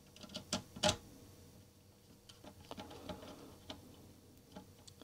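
Small screw being turned by hand with a screwdriver into a 3D-printed plastic drive case: faint, irregular clicks and ticks as the bit works in the screw head, the loudest click about a second in.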